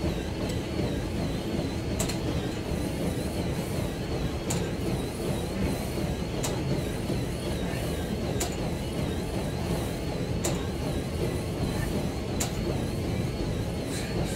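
Smith machine bar sliding up and down its guide rails through a set of heavy bench-press reps, with a short sharp click about every two seconds, over a steady low rumble.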